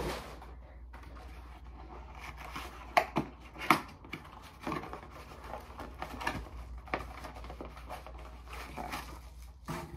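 Cardboard box and packaging being handled during an unboxing: scattered taps, knocks and light rustling, with a few sharper knocks about three to four seconds in, over a steady low hum.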